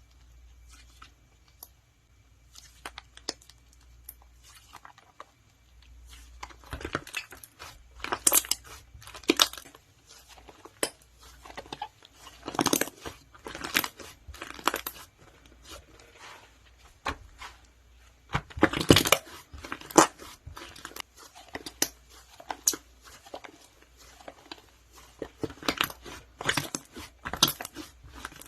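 Slime being squeezed and pressed by hand, giving sharp crackles and pops in dense clusters. It is sparse at first, then comes in louder bursts from about six seconds in.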